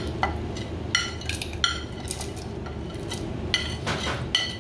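Tableware clinking at a meal: about eight sharp, irregularly spaced clinks, each with a short ringing tone, over a low steady background.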